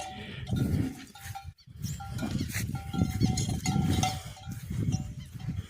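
Agitated cattle making low rumbling bellows in repeated bursts, with short clear high tones recurring between them; the owner says the animals are nervous, sensing rain.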